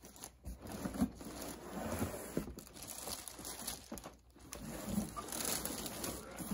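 Plastic bag crinkling and cardboard rustling as an RC truck wrapped in plastic is slid out of its cardboard box, with a brief lull about four seconds in.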